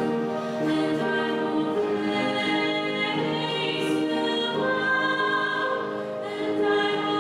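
A choir singing a slow sacred piece, the voices holding long notes and moving between them smoothly.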